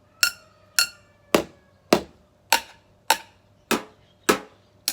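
Wooden chopsticks tapping in a steady beat, a little under two strikes a second, on household containers such as a pot, a bowl, a bottle and a tin, each giving a different sound. The first couple of strikes ring with a clear tone; the later ones are duller knocks.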